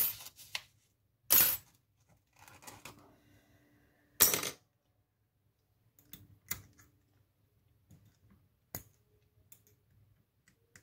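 Small metal lock-picking tools clinking against a challenge lock while a tension wrench is being fitted into its keyway. Three sharp metallic clinks come in the first four and a half seconds, then quieter scattered ticks and scrapes.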